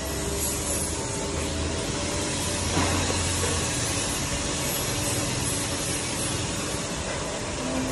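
Handheld laser welder and its cooling unit running: a steady hiss over a low hum, with one brief knock about three seconds in.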